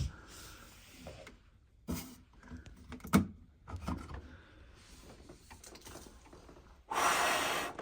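Small plastic clicks and knocks of a smoke alarm's cover being pulled off by hand. Near the end comes a loud, breathy rush of air lasting under a second.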